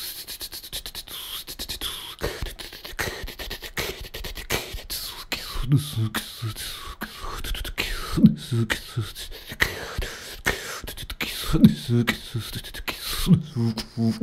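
Human beatboxing: a fast, dense rhythm of mouth-made percussive clicks, kicks and hissing snares. From about six seconds in, low hummed bass notes come in short bursts under the beat.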